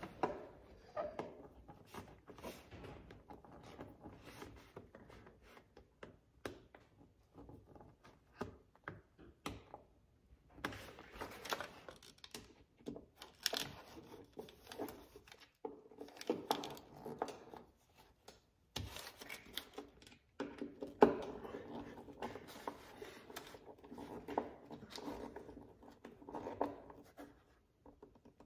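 Hand screwdriver tightening the screws of a fabric door storage bag into a plastic side-by-side door panel: scattered small clicks, scrapes and fabric rustling, busier in the second half.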